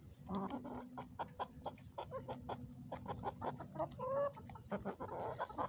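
Hens pecking grain from an open hand: a quick, uneven run of small beak taps and clicks, with soft clucking. One short hen call about four seconds in.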